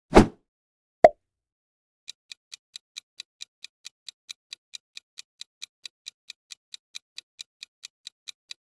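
Countdown timer sound effect: a clock ticking evenly, about four to five ticks a second, starting about two seconds in. Before it come a short burst of noise at the start, the loudest sound, and a short pop about a second in.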